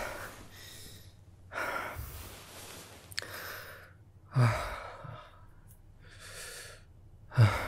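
A man breathing out heavily and sighing, about five separate breaths. The two loudest, about halfway through and near the end, start with a short low voiced sound that falls in pitch.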